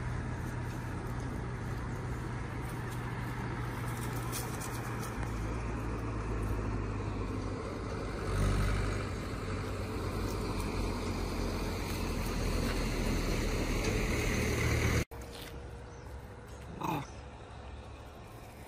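Road traffic: a steady engine rumble, swelling as a vehicle passes about eight seconds in, that cuts off abruptly about fifteen seconds in. A quieter background follows, with one short call rising and falling in pitch about two seconds later.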